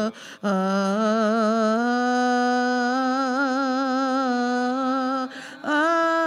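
A single female voice singing unaccompanied, holding one long note with vibrato that steps up slightly about a second and a half in. After a brief break near the end it moves onto a higher note.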